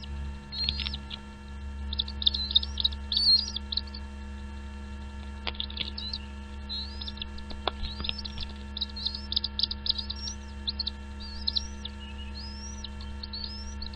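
Small birds at a nest chirping in quick clusters of short, high, up-slurred notes, the calls of parent birds and nestlings at feeding. A steady low electrical hum runs underneath.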